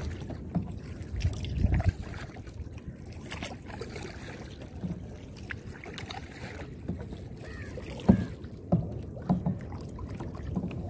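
Kayak paddling: the paddle splashing and dripping in the water, with a few sharper knocks around eight to nine and a half seconds in. A low rumble is strongest in the first two seconds.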